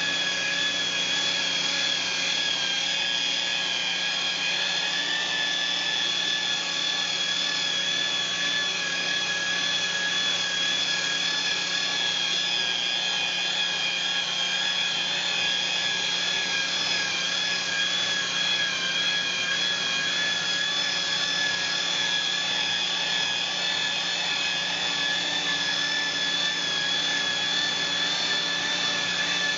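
Makita electric rotary polisher running at steady speed with an even whine, its wool pad rubbing across a solid surface countertop as the surface is polished to a gloss.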